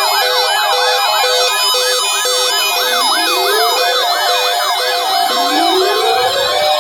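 Several electronic siren tones sounding together: a fast repeating yelp, a high wavering warble and an on-off beep. A slow rising whoop starts about three seconds in and again near the end.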